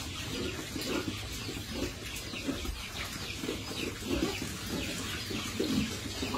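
Pigs grunting in short, repeated grunts as they feed together, with high chirping calls over them.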